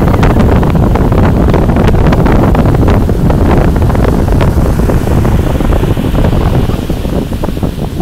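Strong wind buffeting the microphone in loud, gusty rumbles, over ocean surf breaking and washing up the beach. The wind eases a little near the end.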